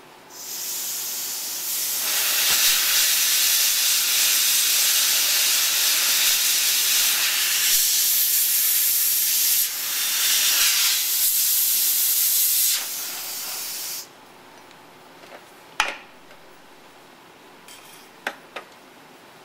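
Jet of nitrogen gas from a hose nozzle blowing a rinsed glass coverslip dry: a loud steady hiss that starts just after the beginning, grows louder after about two seconds, dips briefly near the middle and cuts off after about fourteen seconds. A sharp click and a few light ticks follow.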